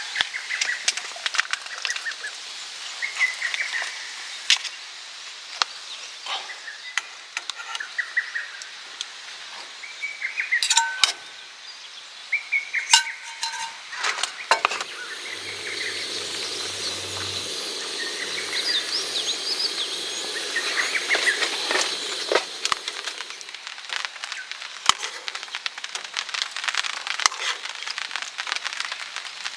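Small birds chirping over and over around a campsite, with scattered sharp clinks and knocks of cooking gear being handled. A steady hiss runs for several seconds midway.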